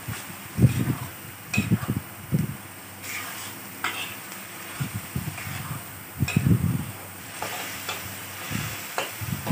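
Metal spatula scraping and stirring a blended onion, ginger and lemongrass paste around a metal wok in irregular strokes, about one or two a second, while the paste sizzles in hot oil.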